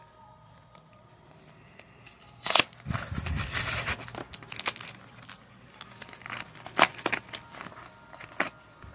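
A foil Pokémon booster pack being torn open and its wrapper crinkled, with sharp crackles and rustles from about two seconds in, the loudest tear near the start.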